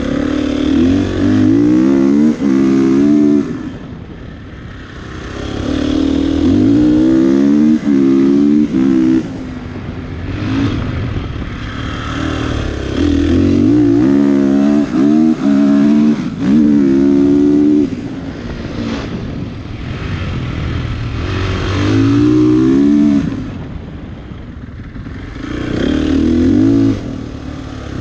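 Dirt bike engine accelerating hard, its pitch stepping up through the gears with brief breaks at each shift, then backing off, about five times over.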